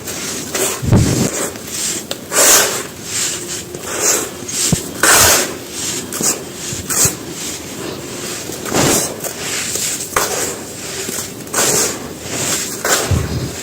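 Dry sand-cement slabs and cones crumbling and crunching in a tub: a series of crisp, gritty crunches at irregular intervals, with two dull thumps, about a second in and near the end.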